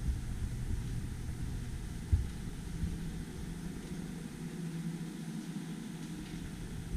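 Low rumbling handling noise from a handheld camera being carried while walking, with a few soft thumps, the strongest about two seconds in.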